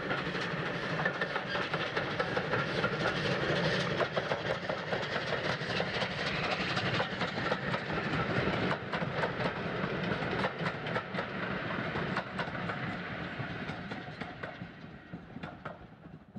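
Passing steam train: the three-cylinder Bulleid West Country class locomotive 34092 City of Wells working hard with its exhaust beating, followed by its coaches clattering over the rail joints. The sound fades away over the last few seconds as the train draws off.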